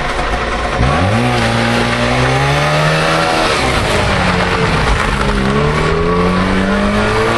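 A Trabant's two-stroke twin-cylinder engine revving hard as the car launches from the start about a second in, its pitch climbing, dropping briefly at a gear change around three and a half seconds, then climbing again under full acceleration.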